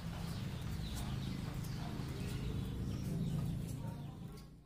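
Outdoor background noise: a steady low rumble with faint scattered ticks and chirps, fading out near the end.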